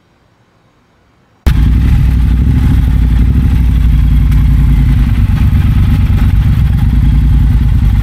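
A short quiet stretch, then about a second and a half in the sound cuts abruptly to a Triumph Bobber's 1200 cc parallel-twin engine running steadily and loudly.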